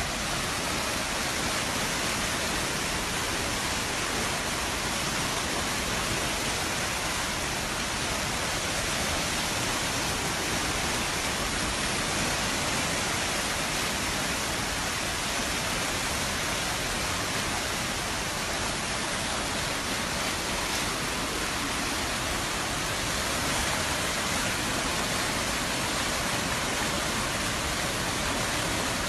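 Muddy floodwater rushing down a swollen river: a steady, even rush with no breaks.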